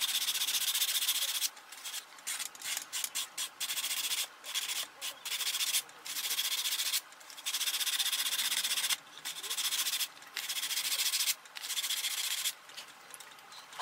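Sandpaper on a hand sanding block rubbing against a small foam-and-stick model plane part, in long back-and-forth strokes with short gaps and a run of quick short strokes a couple of seconds in. The sound is sped up to double speed.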